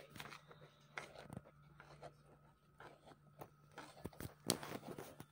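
A spoon scraping and tapping against a plastic sieve as blended smoothie pulp is pressed through, faint scratchy ticks with a few sharper clicks about four seconds in, over a low steady hum.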